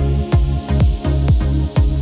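Electronic music with a steady kick drum beating about twice a second, with hi-hat ticks between the beats.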